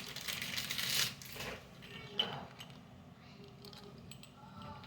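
Jewelry being handled out of its plastic packaging: wrapping rustles for about a second and a half, then a single small click about two seconds in, followed by faint light handling.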